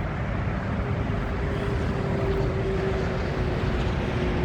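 Steady low rumble of distant highway traffic, with a faint steady hum joining about a second in.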